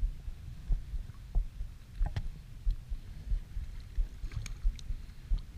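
Small waves lapping and sloshing around a wading angler standing in shallow bay water, in irregular low surges. A few light clicks, one about two seconds in and a short cluster near the end.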